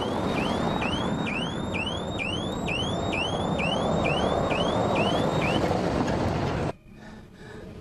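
Street traffic noise with an electronic alarm sounding in quick rising sweeps, about two a second, that stop about five and a half seconds in. The traffic sound cuts off abruptly near the end.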